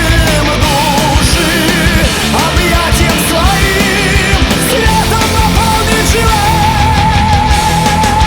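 Heavy rock music with drums and a dense band sound; a wavering lead melody ends in a long held note with vibrato, starting about six seconds in.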